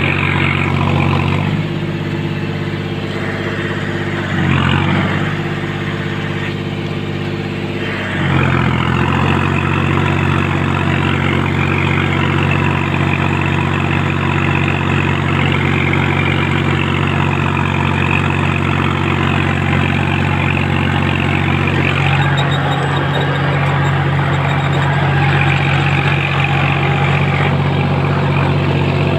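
John Deere 5105's three-cylinder diesel engine running steadily at working revs while it drives a rotavator. Its tone shifts a few times in the first eight seconds and again near the end, and a high whine wavers above the engine for much of the middle.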